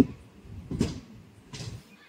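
Wheels of a moving passenger train clattering over rail joints and points, heard from an open carriage door: three knocks under a second apart, the first the loudest, over a steady low rumble.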